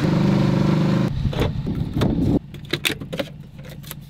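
A Polaris Scrambler 850 ATV engine running steadily at speed. It cuts off abruptly about two and a half seconds in, giving way to quieter light clicks and rattles as a car's dashboard compartment is opened and a paper licence is handled.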